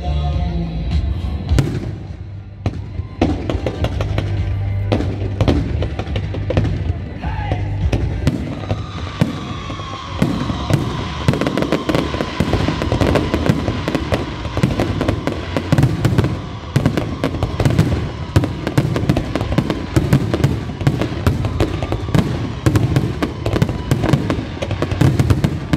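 Aerial fireworks going off: bangs and crackling that thicken into a dense, rapid crackle about ten seconds in.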